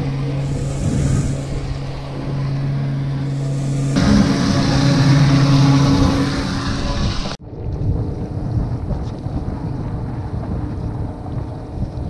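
A boat's motor hums steadily. About four seconds in, water gushes loudly from a hose into a tub. Seven seconds in the sound cuts off abruptly to a low rumble of wind on the microphone.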